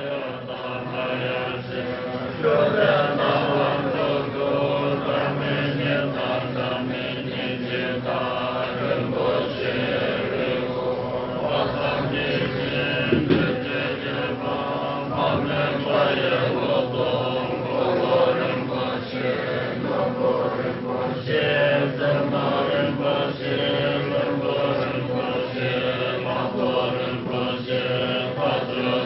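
A group of Tibetan Buddhist monks chanting a long-life prayer together, one continuous chant with no pauses.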